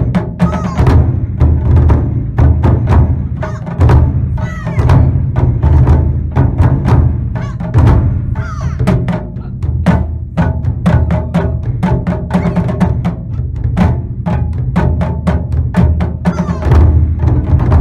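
Taiko ensemble drumming: large taiko on tall stands give deep booms under rapid, dense strokes on smaller drums in a driving rhythm that doesn't let up.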